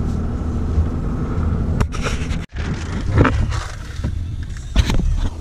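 Steady low rumble of a vehicle moving, heard inside its cabin; after a cut about halfway, the low cabin rumble goes on while a paper fast-food bag crackles a few times as it is opened and rummaged through.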